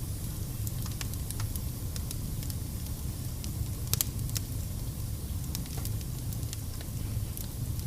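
Fire burning in a fireplace: a steady low rumble of flames with scattered crackles and pops, the sharpest pop about four seconds in.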